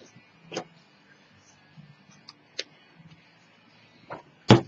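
A few short, separate taps and clicks of hands handling small craft pieces and a glue bottle on a cutting mat, with one sharper knock near the end.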